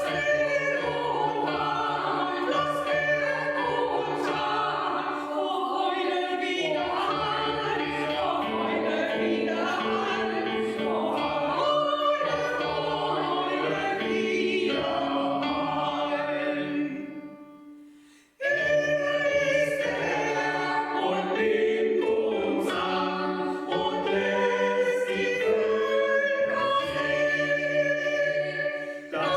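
Choir singing in sustained chords; the singing fades out about 17 seconds in and starts again a second later.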